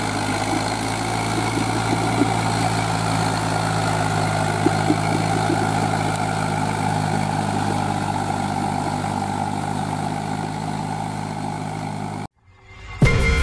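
Eicher tractor's diesel engine running steadily while pulling a disc plough through mud. It cuts off suddenly about a second before the end, and music starts.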